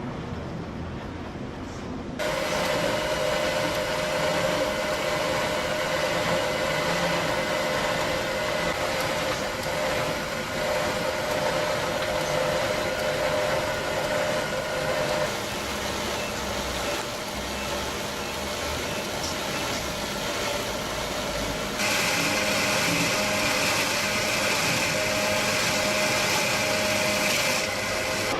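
Heavy wood-processing machinery running steadily with a constant whine, the sound changing abruptly about two seconds in and twice more later on.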